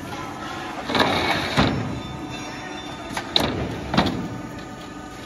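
Knocks and clunks as a solar panel's aluminium frame is set down onto the steel frame of a frame-removing machine, about five hard knocks, the loudest around three and four seconds in. A steady machine hum begins near the end.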